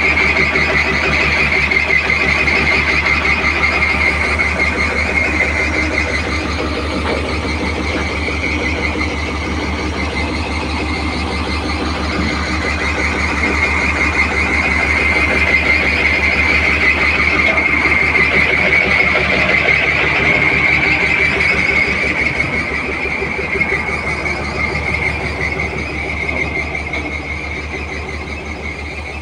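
Heavy-equipment diesel engine idling steadily with an even low throb, under a loud, high steady whine that swells and fades. The sound eases off over the last few seconds.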